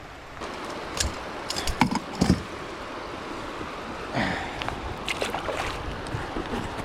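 Steady rush of river water around a fishing kayak, with several short knocks and splashes against the hull.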